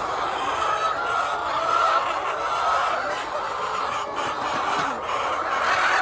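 A crowded flock of hens clucking and calling together: a dense, steady chatter of many overlapping voices.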